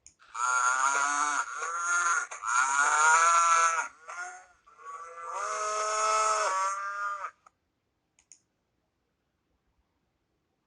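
Cattle mooing: several drawn-out pitched calls one after another, stopping about seven seconds in.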